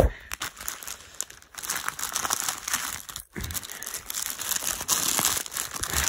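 Plastic poly mailer bag crinkling and rustling as it is handled and opened, with a sharp loud crinkle right at the start and a brief lull a little after three seconds.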